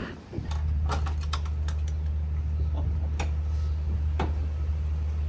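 Scattered sharp clicks and light knocks, as the storage hatches and latches of an overland camper are handled, over a steady low hum that starts about half a second in.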